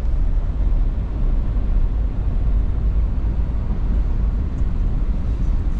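Steady low rumble inside the cab of a 2024 Ford F-350 Super Duty cruising on the highway: road and tyre noise mixed with its 7.3-litre gas V8 running.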